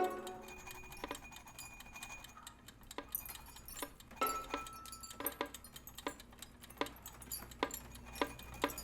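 Sparse, irregular clicks and clinks of small hard objects, some leaving a brief ringing tone, with the sharpest one at the very start: everyday apartment sounds in the electronics part of a piece for violin and electronics.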